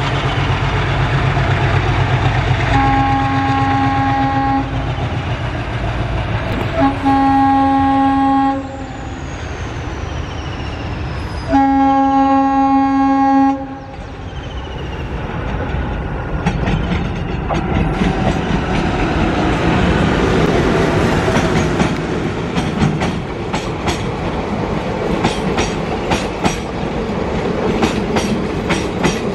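WDP-3A diesel-electric locomotive approaching with its engine running, sounding its multi-tone horn three times, each blast about two seconds long. The coaches then roll past with a steady clickety-clack of wheels over the rail joints.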